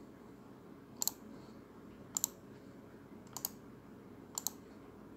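Faint computer mouse-button clicks: four quick double clicks, spaced about a second apart.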